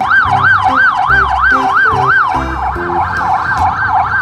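Police car siren in a fast wail, its pitch sweeping up and down about three times a second. A little past two seconds in, a second siren joins slightly out of step with the first.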